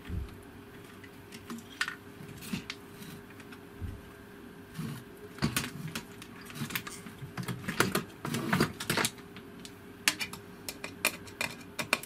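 Scattered light clicks and knocks of plastic appliance parts and wires being handled during a teardown. The clicks are sparse at first and come thick and fast from about five seconds in.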